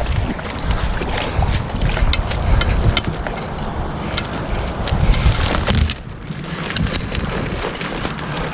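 Wind noise rumbling on the microphone, with dry reeds and tall grass brushing and crackling against a person pushing through a reed bed on foot. The wind eases briefly about two-thirds of the way through.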